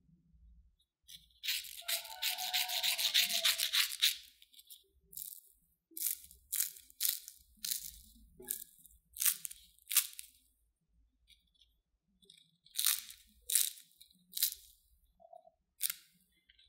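Crispy baked potato sticks with a corn-starch crust being snapped and broken by hand: a long crackling crunch about a second in, then a string of short, sharp, crisp snaps.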